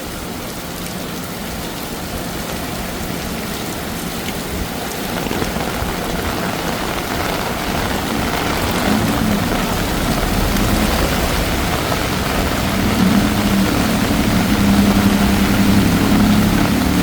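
Heavy rain pouring steadily. Over the second half, a motor vehicle's engine comes in under the rain and grows louder as it draws near.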